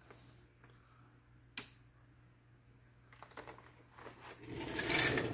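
A single sharp click of a mini rocker switch about a second and a half in, then clattering and rubbing of plastic as the ring light is handled, loudest near the end.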